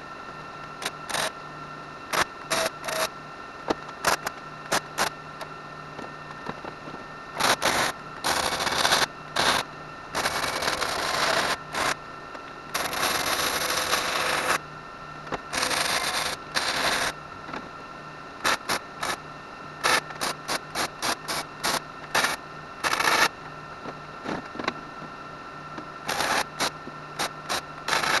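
MIG welder tacking and welding steel square tubing: many short crackling bursts, with a few longer beads of one to two seconds in the middle.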